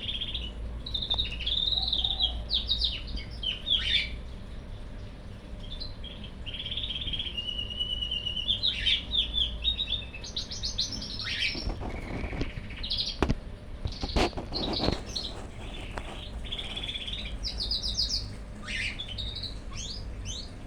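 Cockatiel singing: a string of whistled phrases that glide up and down in pitch, with one held whistle partway through and a couple of sharp clicks, over a low steady hum.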